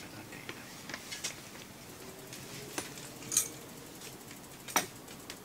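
Metal chopsticks clicking and tapping against a cast-iron skillet of hot pot broth: a few scattered light clicks, with the sharpest one near the end.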